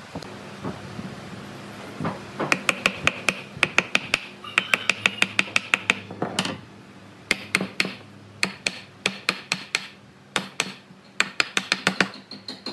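Wooden mallet knocking a joint of a wooden bike frame home: a quick run of sharp taps, about four a second, then slower, more spaced knocks.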